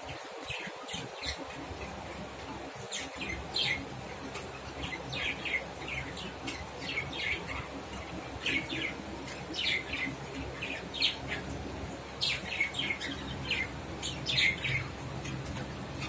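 Budgerigars chirping to each other in short, quick, high calls that come in clusters with brief pauses, over a faint low hum.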